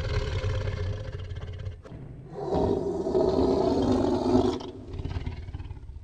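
A large animal growling and roaring: a low rumbling growl, then a louder roar from about two and a half seconds in that ends after about two seconds, trailing off in further growls.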